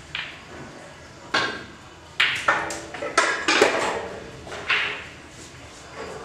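A series of about six sharp clicks and knocks over a few seconds, each with a short ringing tail from the room.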